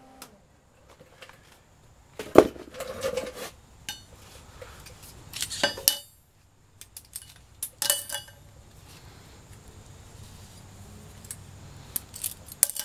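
Sheet-metal parts and locking C-clamp pliers clinking and clanking against a steel plate as the pieces are clamped and shifted, in several short clusters of metallic knocks, the sharpest about two seconds in.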